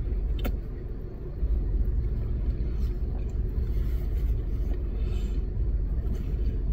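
Low steady rumble of a car idling, heard inside the closed cabin, with a faint steady hum over it. It dips briefly and comes back up about a second and a half in.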